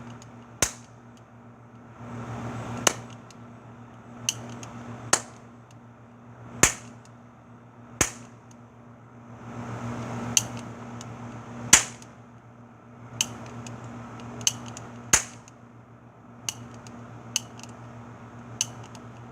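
Toy revolver cap gun firing plastic caps: about fourteen sharp pops spaced one to two seconds apart, the last few fainter.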